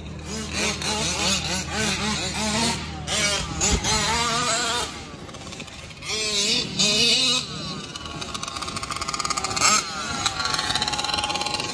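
Small two-stroke engines of gas-powered 1/5-scale RC cars revving up and down, with rising glides as they accelerate. A steady low hum stops about three and a half seconds in, and a sharp crack comes near the end.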